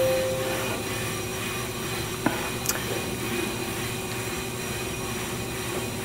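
Steady mechanical hum, with a held beep that stops about half a second in and a faint click a little after two seconds.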